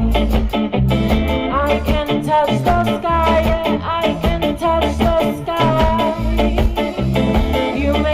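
A live band playing an upbeat song with a pulsing bass line under a melody line that glides up and down.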